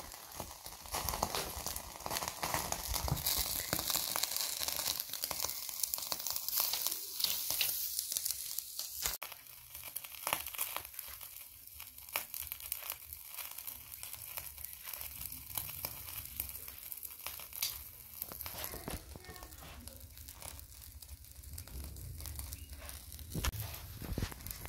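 Fresh pumpkin leaves rustling and tearing as the thin fibrous skin is peeled off their stalks by hand, dense crinkly crackling with many small snaps. After about nine seconds the sound drops to quieter scattered clicks and ticks.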